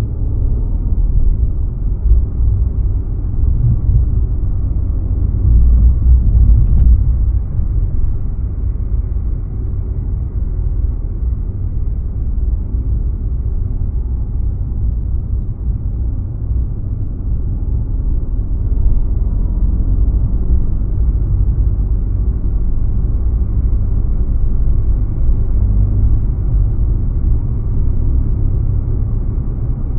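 A car driving: a steady low rumble of engine and road noise, a little louder for a few seconds near the start.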